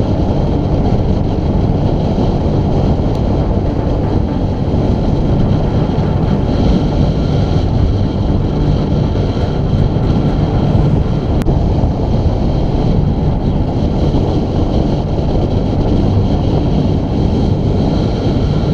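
Loud, steady wind rush over the microphone of a camera on a road bike descending at speed.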